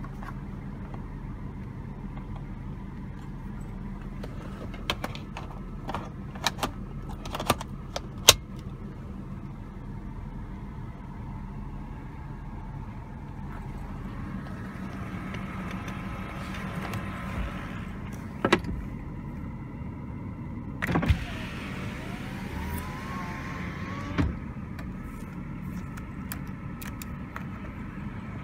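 Cabin sound of a BMW 523i (E39) with its 2.5-litre straight-six idling: a steady low hum. Over it come a run of sharp plastic clicks from the car-phone handset and console switches being handled. About two-thirds of the way through, an electric power-window motor whirs briefly, bracketed by clunks.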